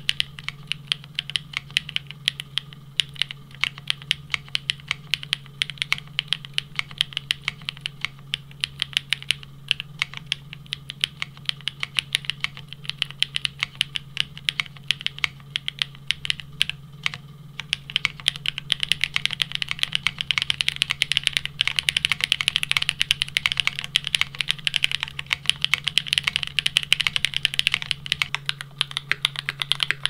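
Continuous fast typing on a Geonworks W1-AT mechanical keyboard in its plateless build, with a 1.2 mm PCB, lubed Gateron Raw linear switches and GMK doubleshot ABS keycaps. The keystrokes come thicker and faster about halfway through, and near the end the same typing is on the carbon-fibre-plate, top-mounted version of the board.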